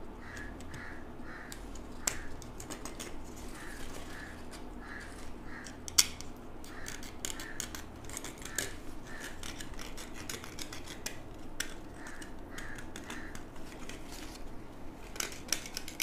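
Knife blade scraping the bark off a guava cutting's stem: soft short scrapes in runs of two or three, with a few sharp clicks, the loudest about six seconds in.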